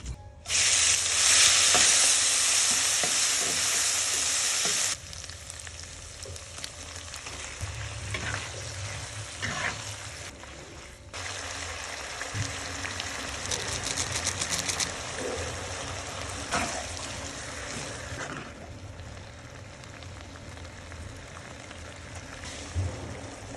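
Stir-fry sizzling in hot oil. A loud sizzle starts about half a second in and drops back suddenly after about five seconds, then quieter sizzling goes on with scattered scrapes and clicks of stirring.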